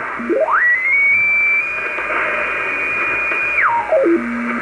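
Shortwave receiver's static hiss with a beat whistle from an unmodulated carrier as the receiver is tuned across it. The whistle climbs in small steps to a high pitch, holds for about two seconds, then steps back down to a low tone near the end.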